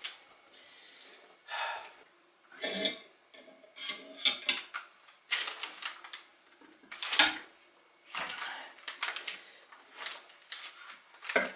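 Irregular metal clinks, clanks and scrapes of hand tools being handled: a pipe and a 3/4-inch wrench being picked up and fitted, with the loudest clank about seven seconds in.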